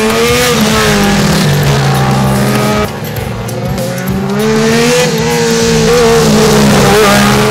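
Inline-four sport motorcycle engine revving hard through the gears, its pitch climbing, holding and dropping again, loudest near the end.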